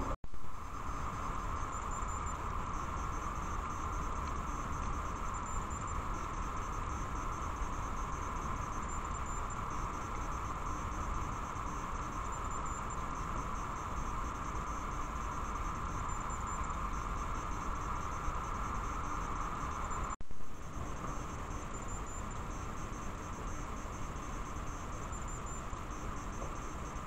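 Steady hiss and electronic whine from a trail camera's own microphone and circuitry, unchanged across separate night recordings. A brief click and dropout twice, just after the start and about 20 seconds in, where one recording is spliced to the next.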